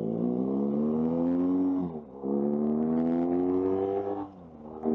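Motorcycle engine pulling away and accelerating through the gears: the note climbs, drops at an upshift about two seconds in, climbs again and drops at a second upshift near the end.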